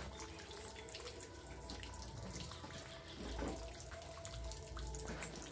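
Water running and trickling steadily, with a few faint knocks.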